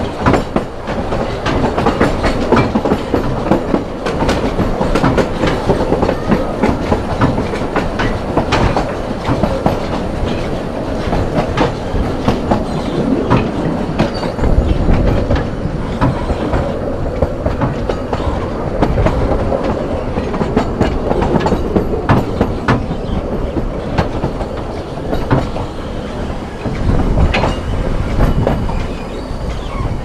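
Vale of Rheidol narrow-gauge railway carriage running slowly over the track: a steady rumble from the wheels, with many sharp clicks and knocks from the rail joints and points.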